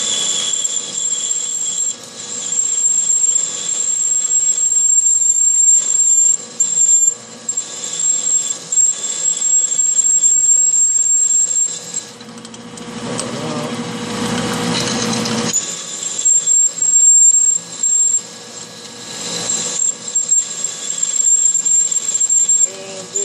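A one-inch drill bit cutting into stainless steel in a metal lathe, with liquid coolant: a steady high-pitched squeal from the cut that breaks off and comes back several times. In the middle the squeal stops for about three seconds and a rougher, rushing grind takes its place.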